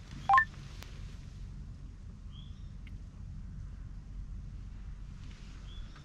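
A brief, loud beep of three quick tones stepping up in pitch, about a third of a second in, over quiet outdoor ambience with a few faint, short, high bird chirps.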